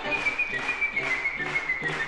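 Studio music with a steady beat of about three strokes a second under a high, whistle-like melody line that slides slowly downward.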